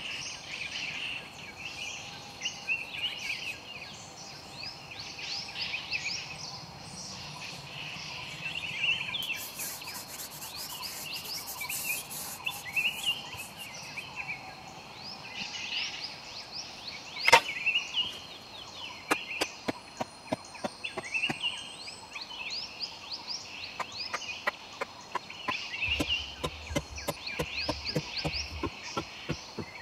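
Birds chirping throughout. About halfway through comes one sharp knock, then from about two-thirds in a run of sharp wooden knocks, two or three a second, as a wooden mallet drives bamboo stakes into the ground.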